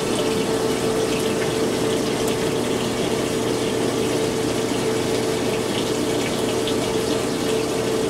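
1985 Kenmore 60 Series top-loading washer in its drain cycle: the drain pump running steadily with a constant hum as water is pumped out of the tub.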